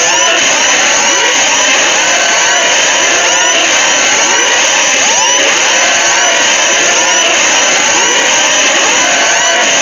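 Mock emergency-alert alarm: many siren-like tones layered over one another, each sweeping up and down in quick repeating arcs, forming a loud, dense, unbroken wall of sound.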